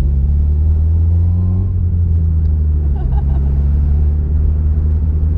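Holden Gemini's engine pulling on the road, its note rising, then dropping suddenly about a second and a half in before settling to a steady drone.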